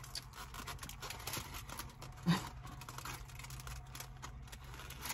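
Faint eating and food-handling sounds: a fried catfish and shrimp po' boy being lifted from its foil-lined tray and bitten into, with light crackling and crunching clicks and a short mouth sound a little past two seconds in.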